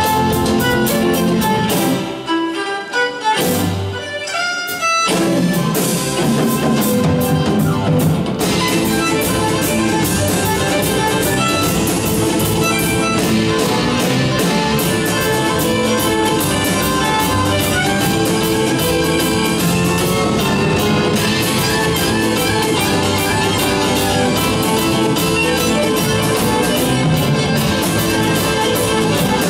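Live band music led by a violin, with acoustic guitar, electric bass, drums and keyboard. About two seconds in the band thins out for a few seconds to a few single notes climbing in pitch, then the full band comes back in.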